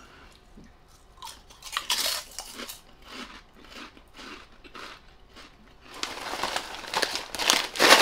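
Crisp, irregular crunching and chewing of freshly microwaved puffed pork rinds being eaten. Near the end, a paper snack bag rustles louder.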